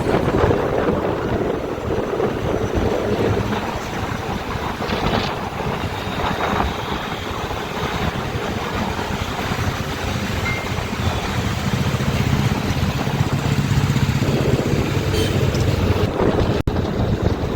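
Wind rushing over the microphone while riding a motorcycle, with the engine's low steady hum and road noise underneath; the hum grows stronger about twelve seconds in.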